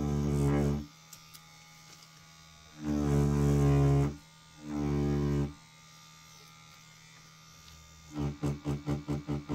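Rotary pen tattoo machine buzzing in short runs of about a second as the needle works practice skin: three separate runs, then near the end it cuts on and off rapidly, about five times a second.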